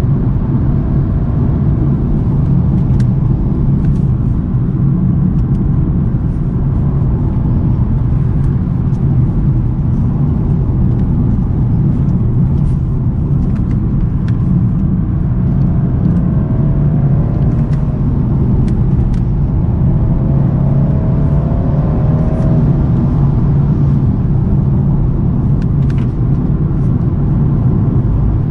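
2022 BMW 230i's turbocharged four-cylinder exhaust and road noise while cruising, heard from the rear of the car: a steady low drone. The engine note climbs a little twice in the second half as the car picks up speed.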